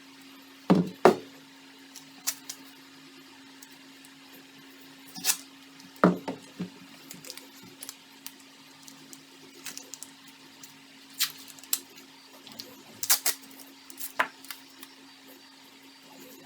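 Irregular sharp knocks and clicks, like tools or wood being handled and set down, over a steady low hum; the loudest pair of knocks comes about a second in and another about six seconds in.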